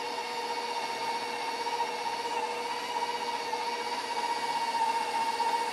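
KitchenAid bowl-lift stand mixer running on high, working cold butter pieces into the dough: a steady motor whine.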